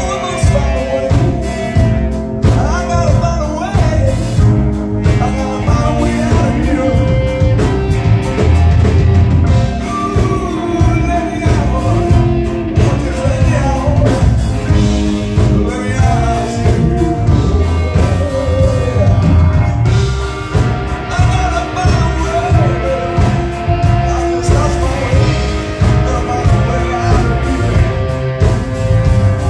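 Live rock band playing a song: electric guitar, drum kit with a steady beat, and a lead singer singing into a microphone, heard from the audience.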